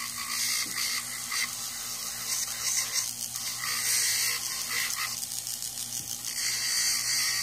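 Dremel rotary tool on a flexible shaft running at speed, its coarse abrasive wheel grinding the sharp edges off enamel on copper. Under the steady motor hum, a gritty grinding sound swells and fades several times as the piece is pressed against the wheel and eased off.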